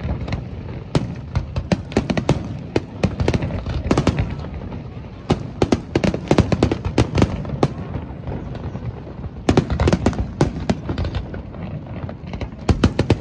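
Fireworks display: aerial shells bursting in quick succession, many sharp bangs and crackles overlapping, with a brief lull about eight seconds in before the bangs pick up again.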